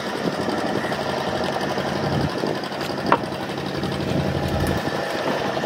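Boat engine running steadily at low speed with a fast, even mechanical rattle, and a single sharp click about three seconds in.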